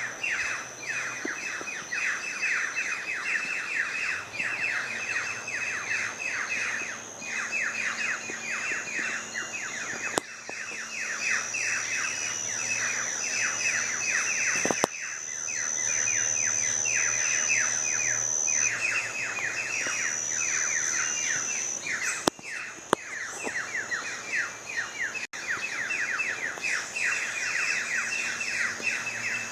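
Birds chirping: a dense, rapid string of short repeated chirps, many a second, running with only brief breaks. A thin, high, steady tone comes and goes above it.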